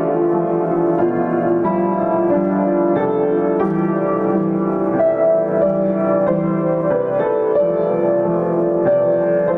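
Solo piano playing at a steady moderate tempo, chords under a melody, played by a learner about fourteen months into lessons.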